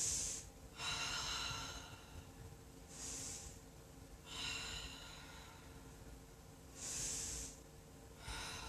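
A woman breathing audibly while holding a yoga backbend: a series of hissing breaths, each half a second to a second long, coming every one to two seconds.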